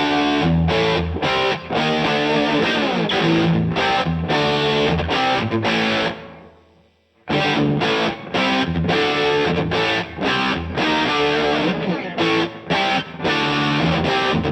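Distorted electric guitar played through the DVII amplifier, a choppy riff of short stopped notes. About six seconds in the playing stops and rings out to near silence, then the riff starts again a second later.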